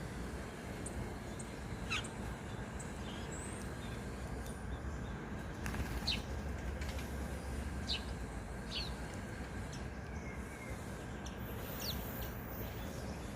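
Wild birds giving short, high chirps that drop in pitch, scattered every second or two, over a steady low background rumble.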